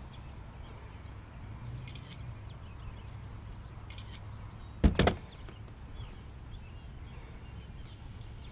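A single sharp knock on the kayak, about five seconds in, over a steady low rumble and a faint steady high hiss.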